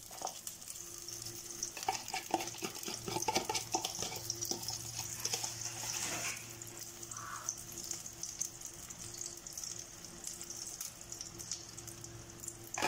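Beaten egg with spring onion, tomato and chilli sizzling as it is poured into hot melted butter in a nonstick frying pan. A spoon clicks and scrapes as the mixture is scraped out of the tub and spread in the pan, most busily a couple of seconds in.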